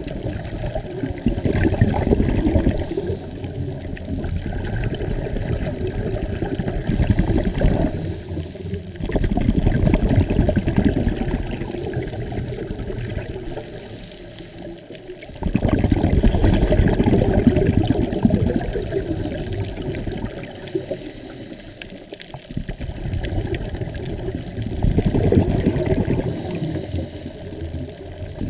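Scuba diver's exhaled bubbles from the regulator, bubbling and rumbling underwater in four long surges about eight seconds apart, with quieter stretches between.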